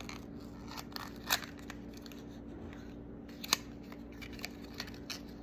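Small sharp plastic clicks and light crinkling as a miniature toy's little packaging is opened by hand, with two louder snaps, one about a second in and one about three and a half seconds in.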